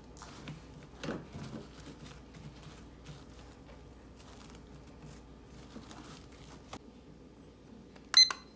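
Plastic cling film crinkling as it is stretched over a bowl and pressed around the rim. Near the end, a digital kitchen timer gives a short, high beep, about twice, as it is started.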